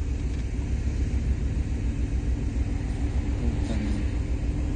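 Steady low rumble of a car engine idling, heard from inside the car's cabin.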